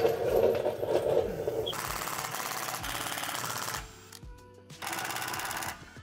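Cordless ratchet spinning a bolt under the car in two bursts, a longer one of about two seconds and then a short one of about a second, over background music.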